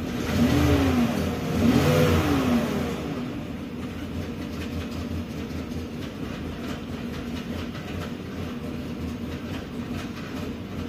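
Chevrolet Tahoe V8 blipped twice, its pitch rising and falling each time, then settling to a steady idle. The engine has a misfire that the scan tool counts on individual cylinders, cylinder 1 among the worst.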